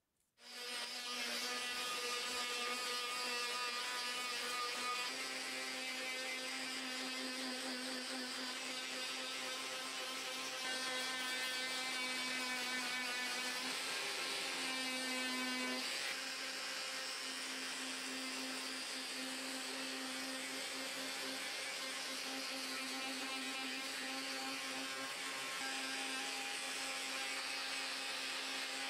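Electric triangular detail sander running steadily against a wooden hammer handle, a steady motor hum that starts abruptly and shifts slightly in pitch a couple of times.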